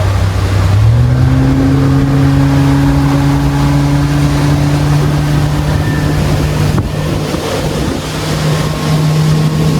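A tour boat's engine steps up in pitch about a second in, then runs steadily under power, with wind on the microphone.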